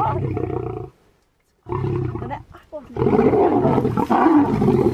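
Lions growling over a zebra kill. There is a low growl, a short pause, another growl, then from about three seconds in a louder, rougher snarling as the lions squabble at the carcass.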